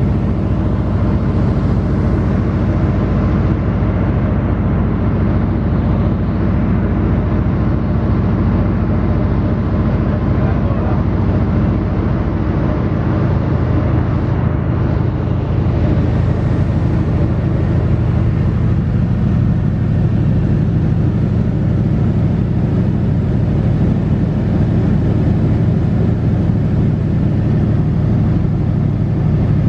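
De Havilland Beaver floatplane's radial piston engine and propeller droning steadily, heard from inside the cabin. The tone of the drone changes slightly about halfway through.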